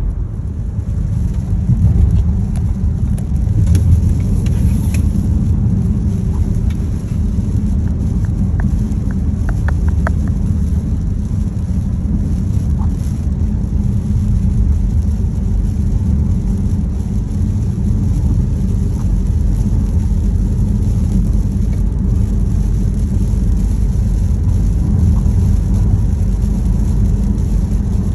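Steady low rumble with a hiss of rain, and a few light clicks and taps in the first ten seconds or so.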